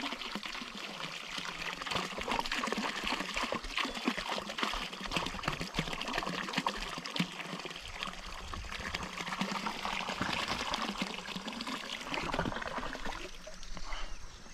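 Water and freshwater shrimp pouring out of the neck of a large plastic water jug, a steady splashing pour that tapers off near the end as the jug empties.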